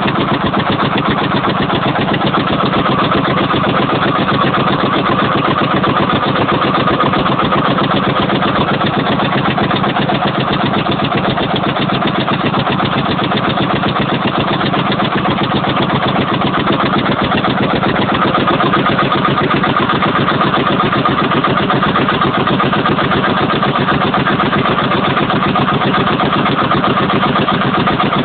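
Labourier LD15 tractor's CLM single-cylinder two-stroke opposed-piston diesel engine running steadily and evenly, like clockwork, with a rapid even pulse of firing strokes.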